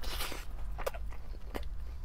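A person biting into and chewing a cheeseburger on a crisp toasted bun: a brief crunch at the start, then a few wet mouth clicks and smacks as he chews.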